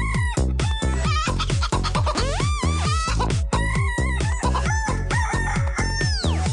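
Techno dance track with a fast, steady kick-drum beat, its melody made of sampled chicken clucks and rooster crows. Pitched clucks repeat on the beat, a cluck bends upward about two seconds in, and a crowing sweep falls near the end.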